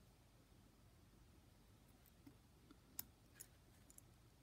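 Near silence broken by a few faint clicks as the plastic DS1216 SmartWatch socket module is handled in the fingers. The sharpest click comes about three seconds in, followed by a few smaller ones.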